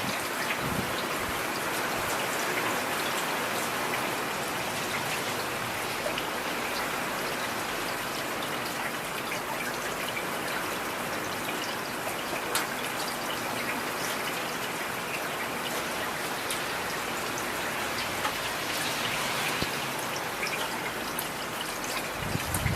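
Heavy rain falling steadily, with scattered sharp drop taps standing out from the even hiss.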